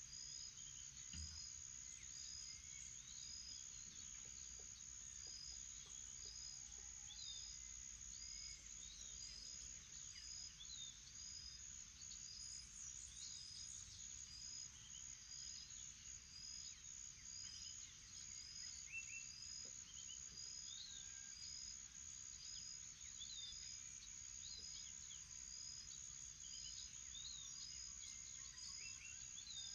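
Faint morning chorus of birds calling and singing over a steady high-pitched insect drone, with a short insect-like chirp repeating about once a second.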